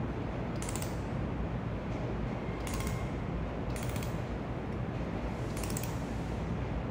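Handheld laser welding gun firing four short bursts on a metal part, each a rapid high crackle of clicks, over a steady low machine hum.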